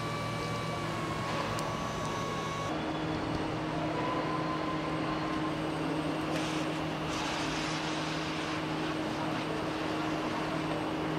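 Steady factory-floor machinery hum with a few constant tones. The mix of tones changes about three seconds in.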